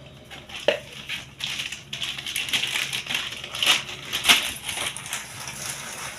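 Plastic parts of a kitchen wet grinder being handled: irregular clicks and knocks with rustling and scraping, the sharpest knocks about a second in and near the two-thirds mark.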